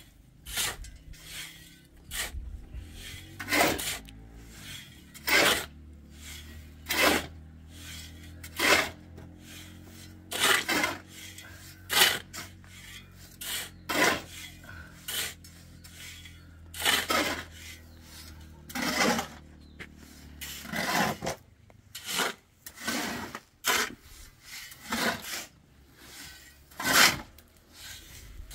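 Repeated rasping scrapes, each short and sharp, about one every one and a half to two seconds.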